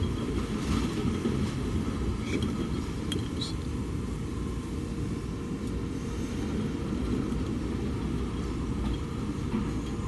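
Steady low rumble of commercial laundrette washing machines and tumble dryers running, with a few faint clinks about two to three seconds in.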